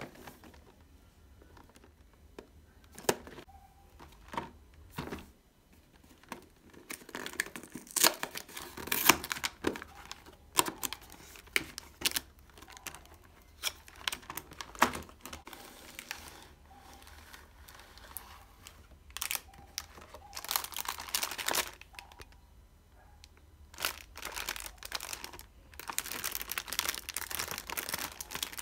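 Cardboard cookie box and plastic packaging being handled and opened: a few separate taps and clicks from the box at first, then bouts of plastic wrapper and clear plastic tray crinkling.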